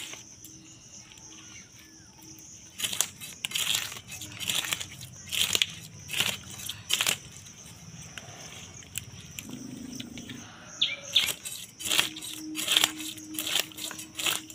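Scales being scraped off a large katla carp against an upright blade (boti): quick rasping strokes, about two a second, in two runs with a pause in the middle.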